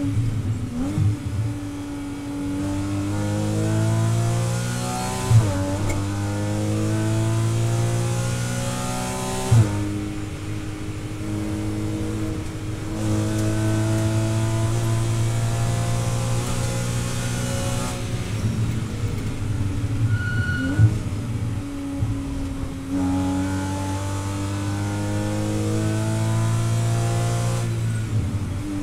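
Naturally aspirated flat-six engine of a Porsche Cayman 981 race car, heard from inside the cabin, pulling hard and rising in pitch through the gears, with sharp drops at upshifts about five and ten seconds in. About two-thirds of the way through it eases off and downshifts, then pulls hard again, rising toward the end.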